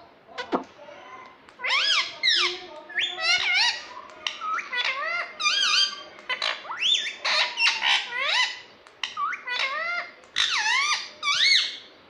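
Indian ringneck parakeet giving a rapid run of high, squeaky calls, each swooping up and down in pitch, in short bursts with brief pauses.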